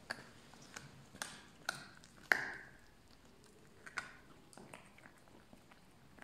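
Puppy gnawing on a bone: irregular sharp cracks and clicks of teeth on bone, the loudest about two and a half seconds in.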